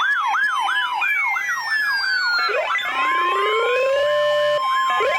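Layered electronic siren sounds. A fast yelp sweeps up and down about three times a second under long falling glides, and about two and a half seconds in it gives way to slower rising wails and a steady high tone.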